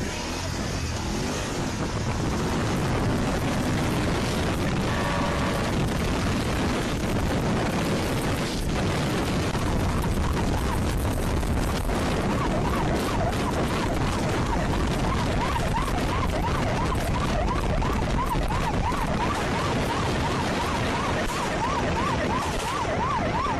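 Police motorcycle at speed in a pursuit, with heavy wind and engine noise. From about halfway through, a siren yelps, rising and falling about twice a second.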